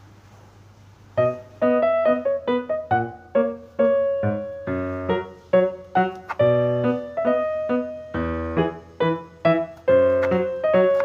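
Background piano music: a light melody of struck notes, each fading away, starting about a second in.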